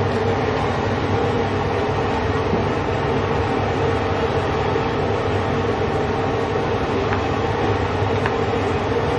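A steady mechanical drone with a constant low hum and rumble, unchanging throughout.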